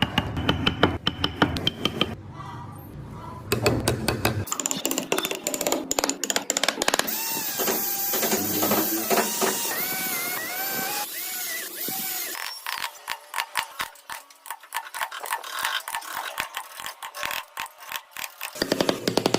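Woodworking tools at work on wood in a run of short takes: a power tool whine that repeatedly dips and rises in pitch under load in the middle, then a rapid run of clicks or taps.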